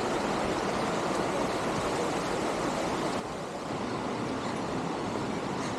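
Steady rush of a creek flowing over rocks, a little quieter from about three seconds in.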